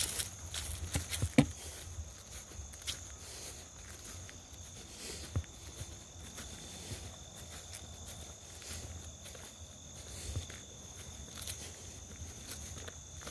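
Insects chirring steadily in two high, unbroken tones, with footsteps and scattered clicks; one sharper click comes about a second and a half in.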